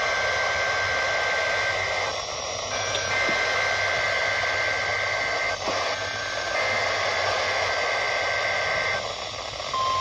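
Emergency Alert System digital header tones played over AM radio: three roughly two-second bursts of harsh, buzzing high-pitched data tones with short gaps between them, over a steady radio hiss. Just before the end a single steady alert tone begins.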